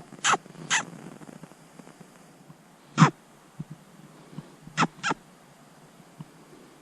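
A string of short, sharp barking calls, each dropping quickly in pitch: a quick run of three at the start, a single one about three seconds in, and a close pair about five seconds in.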